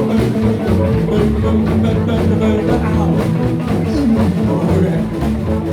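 Live band playing an instrumental passage: electric guitar over a steady drum-kit beat, with one sliding, falling note about four seconds in.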